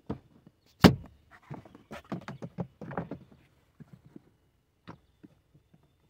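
Plastic interior trim clips being pressed home on a car's pillar and sill trim: one loud sharp snap about a second in, then a run of smaller clicks and knocks as the panel is worked into place. The clicks signal that the retaining tabs are seated.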